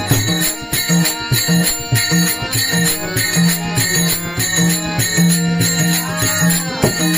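Marathi Warkari bhajan music: held steady tones over an even rhythm of percussion strokes.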